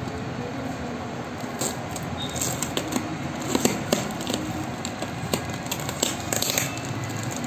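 Clear plastic parcel wrap and packing tape crinkling and crackling as fingers pick at and peel it off a cardboard box, in scattered bursts of crackles, busiest in the second half, over a steady background noise.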